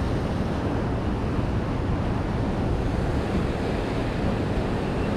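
Ocean surf washing onto the shore, a steady rush, with wind buffeting the microphone.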